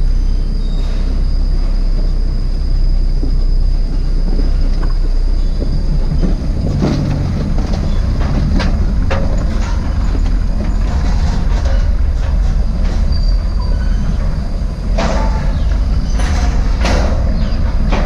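Small 4x4 (a Suzuki Jimny) driving over a rough dirt track: a steady low rumble of engine and tyres, with knocks and rattles from the body and suspension, more often in the second half.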